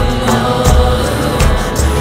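Background music with a steady beat under held, droning tones.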